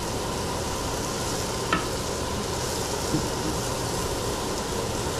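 Garlic, ginger and onions frying in oil in a pot: a steady sizzle, with a couple of light clicks.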